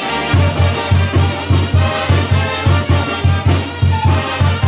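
Mexican brass band (banda de viento) playing a chilena: trombones and tuba over a drum kit, with a steady low beat about three times a second.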